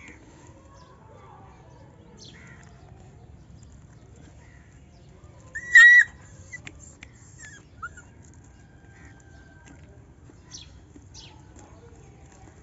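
A puppy gives one short, high yelp about six seconds in, with a few fainter squeaks after it.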